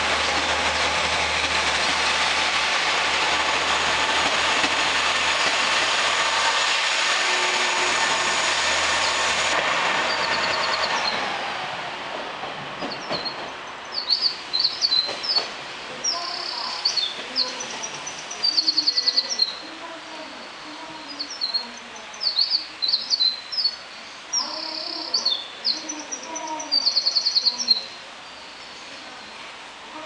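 A three-car KiHa 40-series diesel railcar train pulling out past the platform, its engines and wheels running loud and steady for about eleven seconds before fading away. After that, birds chirp repeatedly in short calls and quick trills.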